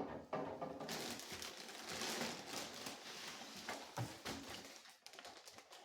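Handling noise from a new chainsaw being turned over and looked over: a steady rustle with a few light knocks, a sharper one about four seconds in.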